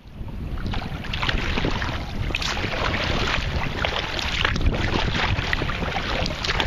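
Water splashing and lapping from kayak paddle strokes on choppy lake water, with steady wind noise on the microphone.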